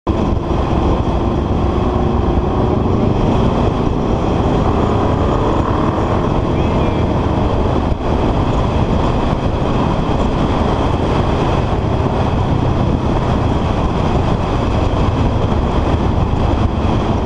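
Honda CBR sport bike cruising at road speed: its engine runs steadily under loud wind noise on the rider's camera microphone.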